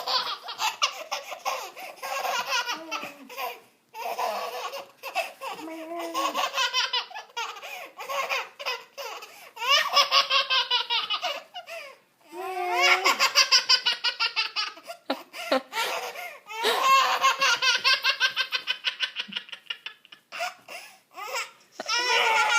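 A baby laughing in several long fits, each a quick string of high-pitched pulses, with short breaths and pauses between them.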